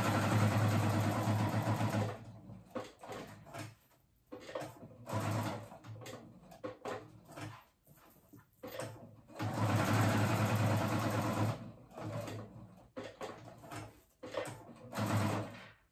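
Husqvarna Viking Designer I sewing machine stitching a Velcro strip onto fabric in stop-start bursts: a run of about two seconds at the start, a short one about five seconds in, another two-second run around ten seconds in and a short one near the end, with small clicks of handling between.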